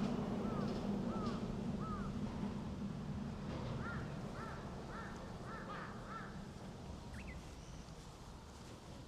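A crow cawing, a run of short harsh calls about two a second, then a second, higher run of caws a couple of seconds later. A low steady hum underneath fades away over the first few seconds.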